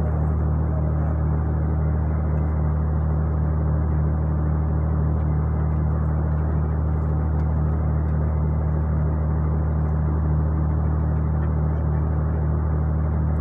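Ship's machinery running with a steady deep hum and an even rushing noise over it, unchanging throughout.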